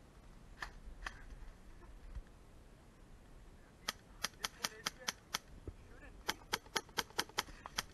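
Airsoft gun firing rapid single shots, sharp cracks about four to five a second, in two strings of about seven shots each, one midway through and one near the end, with two fainter clicks near the start.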